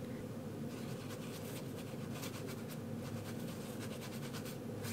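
Paintbrush strokes on watercolour paper: a run of soft, scratchy brushing and dabbing as wet paint is worked onto the sheet, over a steady low hum.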